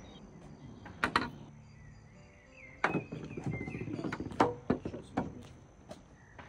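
Minigolf balls and putters: sharp clacks of a putter striking a ball and of the ball knocking against the lane's borders. In the middle there is a spell of low rolling rumble with several more knocks.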